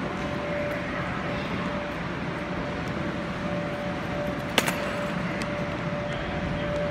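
Steady background noise of a large gymnasium with a faint steady hum, and a single sharp knock about two-thirds of the way through.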